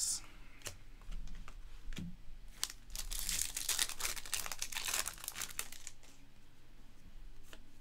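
A foil trading-card pack wrapper being torn open and crinkled for about two seconds, starting around three seconds in. Before and after, there are light clicks and slides of cards being handled.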